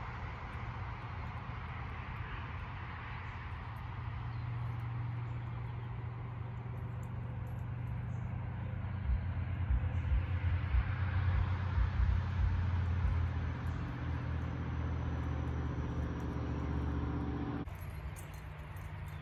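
A steady low machine hum, with gusts of wind buffeting the microphone in the middle; the sound changes abruptly near the end.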